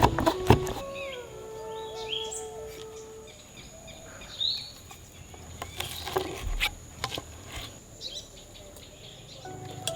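Birds chirping in short rising calls over a steady high insect-like drone, with a few sharp knocks in the first second.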